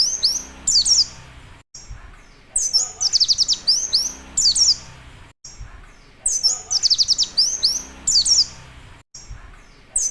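White-eye (pleci) singing: bursts of rapid, high, downward-slurring notes, a fast machine-gun-like run joined to sharp 'wit-wit' calls, repeating about every three and a half seconds.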